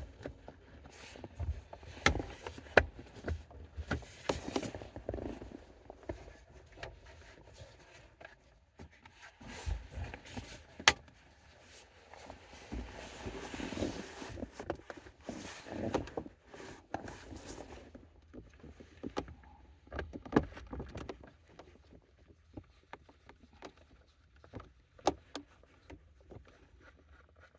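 Irregular clicks, knocks and rustling of hand work on the car's steering column: parts and tools being handled and fitted back together.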